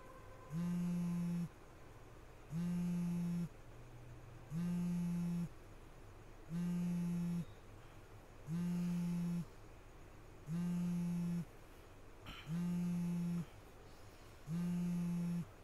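Smartphone buzzing on vibrate for an incoming call: a low buzz about a second long, repeating every two seconds. There is one short click about twelve seconds in.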